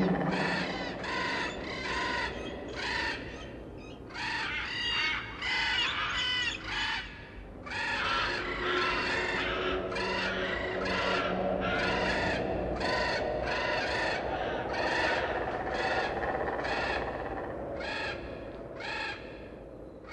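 Harsh bird calls repeated one after another, about one or two a second, with a little curve in pitch on each call.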